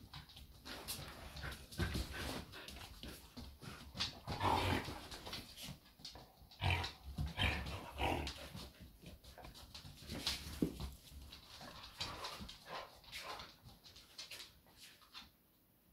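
Dogs licking out empty stainless-steel food bowls after eating, an irregular run of laps, bowl clinks and scuffs.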